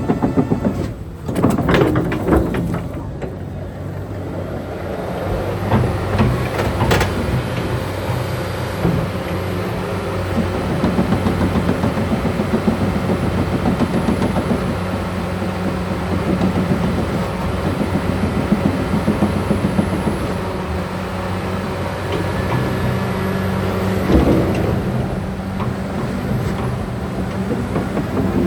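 Hyundai Robex 300 LC-9A excavator's diesel engine running steadily under working load as the machine is operated, with clanking and rattling of metal parts and a few sharp knocks.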